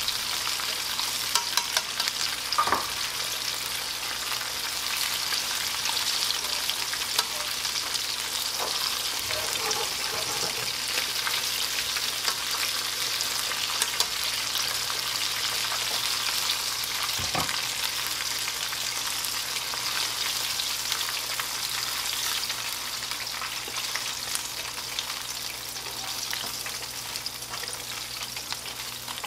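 Battered pork back ribs deep-frying in a pan of hot oil: a steady, dense crackling sizzle. A few light clicks come as wooden chopsticks turn the pieces.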